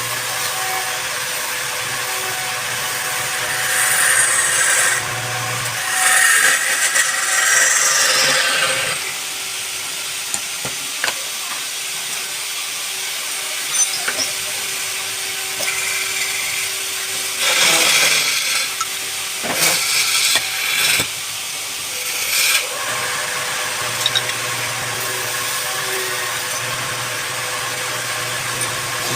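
A woodworking power tool running steadily, with several louder stretches of a few seconds each as it cuts into wood, and a few sharp clicks.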